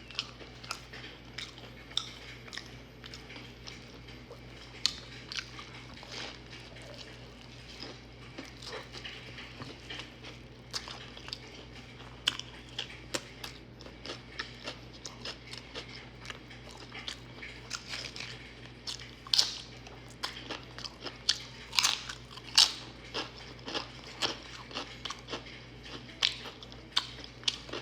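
A person chewing and biting into a sandwich with pickles, up close, with repeated sharp crunches and wet chewing; the crunches come thickest and loudest about two-thirds of the way through.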